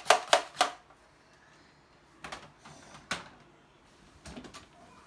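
Plastic toy water gun being handled: three quick clicks and knocks in the first second, then a few scattered knocks of plastic on plastic.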